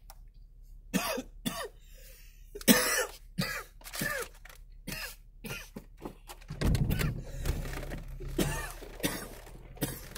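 A person coughing and clearing the throat in a series of short bursts. A low steady hum comes in about two-thirds of the way through.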